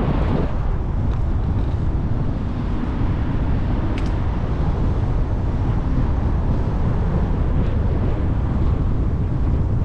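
Wind buffeting the microphone of a camera riding on a moving bicycle: a steady, loud low rumble. A single brief click about four seconds in.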